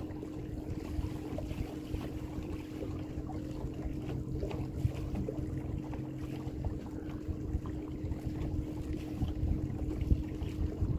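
A boat motor running steadily while under way, with a constant hum, over wind noise on the microphone.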